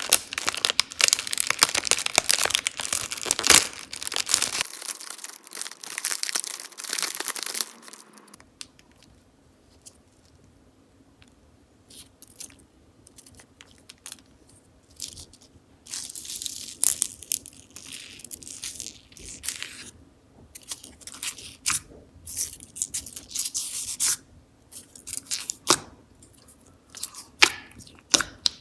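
Slime being worked by hand, crackling and popping: a dense run of crackles for about eight seconds, a brief lull, then scattered bursts of crackles and pops.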